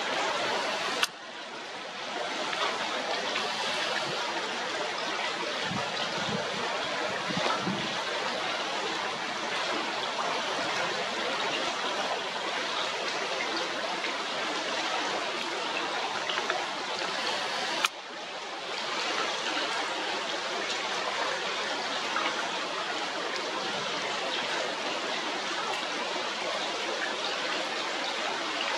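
Steady sound of a river's running water, an even rush with no bird calls standing out. It is broken twice by a single sharp click, about a second in and again around the middle, each followed by a brief dip in level.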